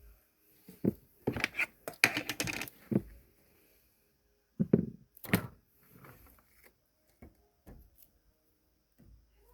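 Irregular clicks and knocks of small objects being handled, in a quick cluster during the first three seconds and again around five seconds in, then a few fainter ones.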